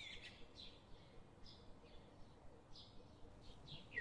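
Near silence, with faint bird chirps repeating in the background.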